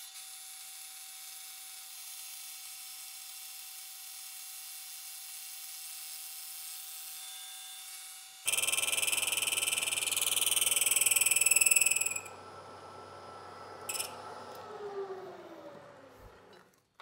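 Vertical milling machine spindle turning a boring head in a welded connecting rod's big end: a steady whine, then about eight seconds in a louder, pulsing stretch of a few seconds as the boring bar cuts. After that the spindle winds down with a falling pitch and stops near the end.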